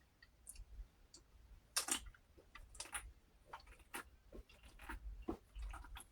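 Soft, irregular mouth clicks and smacks close to the microphone, with a louder cluster about two seconds in.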